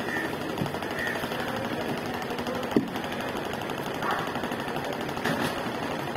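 A machine or engine running steadily with a fast, even rattle, and one sharp knock a little under halfway through.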